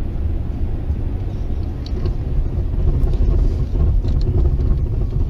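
Steady low rumble of a car driving, its road and engine noise heard from inside the cabin.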